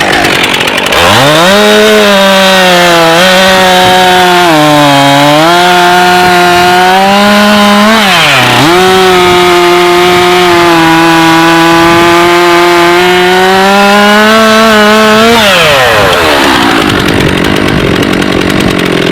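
Stihl MS 362 two-stroke chainsaw at full throttle cutting through an ash log. The engine pitch dips twice as the chain loads down in the cut, about four and eight seconds in. Near the end the throttle is released and the revs fall away.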